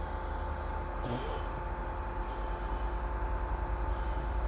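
Steady low mechanical hum with a constant high-pitched whine.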